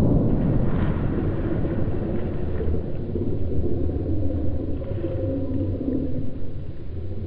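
The fading rolling echo of a rifle shot, then a steady low rumble of wind and handling noise on the microphone as the camera swings fast through the woods. Faint wavering low calls come and go in the second half.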